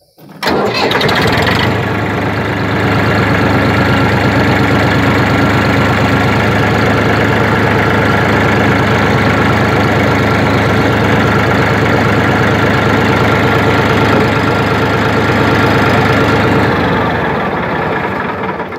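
Massey Ferguson 2605 tractor's diesel engine starting, catching about half a second in and running steadily. It is shut off about seventeen seconds in and runs down.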